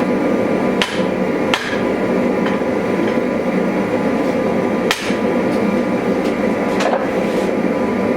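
Hammer blows on the steel of a Bowie sword blade being forged, a handful of sharp, irregularly spaced strikes, the clearest about a second in, at a second and a half and about five seconds in. Under them runs a steady, loud rushing noise.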